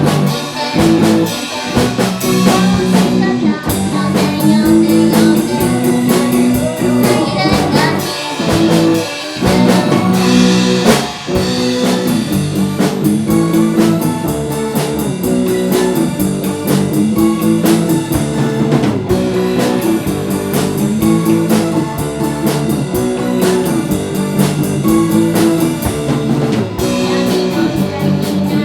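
A band playing a song live: guitar over a steady drum-kit beat.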